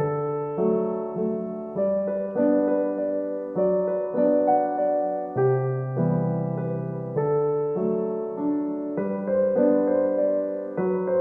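Background music: a gentle piano or electric-piano piece playing a run of held chords that change every second or so.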